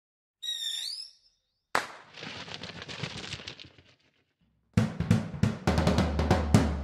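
Intro music for an animated logo. About half a second in, a short warbling high call sounds. A drum roll then starts with a hit and fades away, and near the end a quick run of drum hits plays over a low bass.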